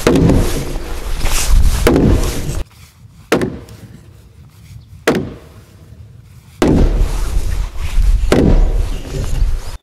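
Heavy wooden mallet pounding a timber beam-and-post joint to drive it home, with single heavy knocks about every two seconds over a steady rushing noise. In a quieter stretch in the middle two sharper knocks ring out on their own.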